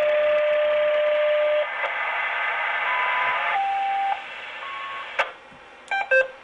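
A VHF/UHF amateur radio's speaker playing hiss with a steady tone, then a few short tones at different pitches. A click comes about five seconds in, and two quick electronic beeps near the end as the radio is switched off.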